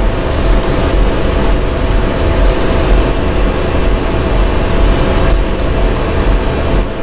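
Steady, loud background rumble with a low hum running under it, and a few faint short clicks, some in quick pairs, about half a second, three and a half, five and a half and nearly seven seconds in.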